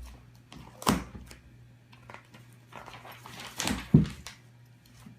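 A pet batting at a magazine that is being read: scattered light knocks and clicks, with two louder thumps about a second in and just before four seconds.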